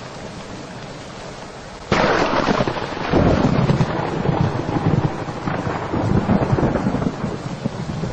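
Thunderstorm sound effect: steady rain hiss, then a sudden loud thunderclap about two seconds in that rumbles on for several seconds in uneven swells.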